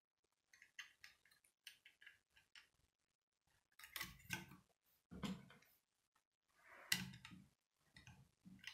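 Plastic Lego bricks clicking and clacking as they are handled and pressed together. Light ticks for the first couple of seconds, then several sharper clacks, the loudest about seven seconds in.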